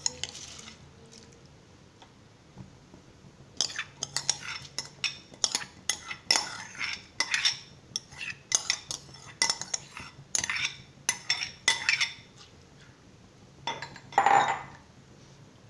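Soaked rice tipped from a glass bowl into a pan of water, then a steel spoon clinking and scraping against the cookware in a quick run of sharp knocks for several seconds. Near the end the spoon stirs through the rice and water in the pan.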